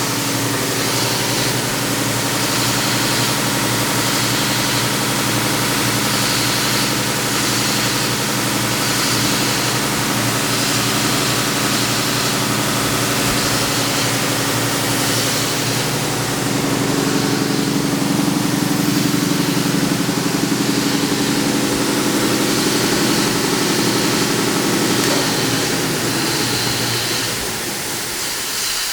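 SCMI Uno 36-inch wide belt sander running with its sanding head and conveyor on: a steady motor hum with several steady tones over an even rushing noise. The tone changes about seventeen seconds in and again about twenty-five seconds in.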